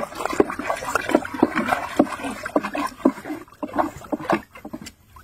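A stick stirring chemical solution in a plastic bucket: water sloshing and splashing in quick, irregular strokes that thin out near the end.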